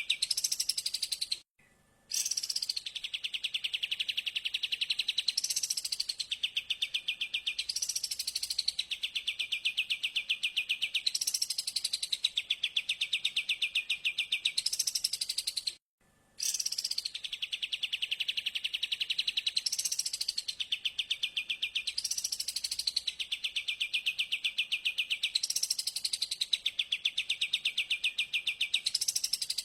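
A recorded bird song played on a loop: a fast, buzzy trill with a rising sweep about every two seconds. It cuts out briefly twice.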